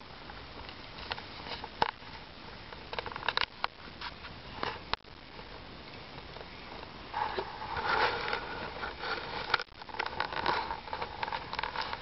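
Wood bonfire crackling, with sharp pops from the burning logs. From about seven seconds in it takes on a denser, steady hiss.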